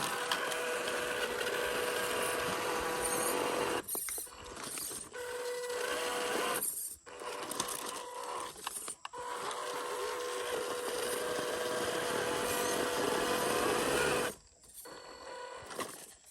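Electric motor and gearbox of an MN128 1/12-scale RC crawler whining steadily while it drives. It cuts out briefly three times as the throttle is let off, then goes quiet for longer near the end with only scattered noises.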